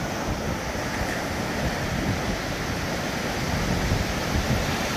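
Wind buffeting the microphone over the steady wash of the sea, a continuous noisy rumble with irregular gusts.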